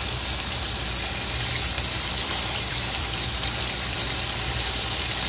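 Ground beef and beef meatballs sizzling steadily in hot oil in a wok.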